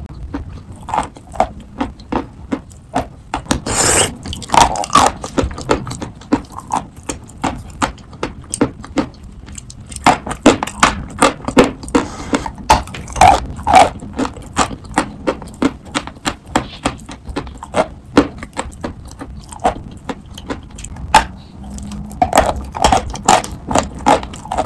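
Chalk being bitten and chewed close to the microphone: a rapid run of sharp crunches and wet mouth clicks, with a longer, louder crunch about four seconds in.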